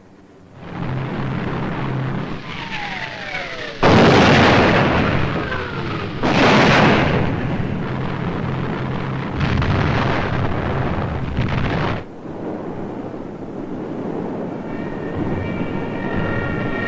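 Bombing-raid soundtrack: aircraft engines droning, falling bomb whistles, and heavy explosions. A whistle drops in pitch and ends in a blast about four seconds in, and another follows at about six seconds, with more blasts near ten and eleven seconds. Near the end a steady high wail of several tones comes in.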